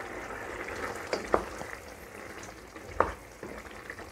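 Chickpea curry boiling in a stainless steel saucepan while a wooden spoon stirs through it, with a couple of sharp knocks of the spoon against the pan, about a second and a half in and about three seconds in.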